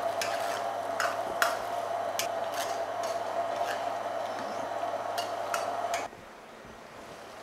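Metal ladle stirring food in a wok, clinking and scraping against the pan about a dozen times over a steady sizzle of the braising sauce and rush of the gas burner. It all stops abruptly about six seconds in.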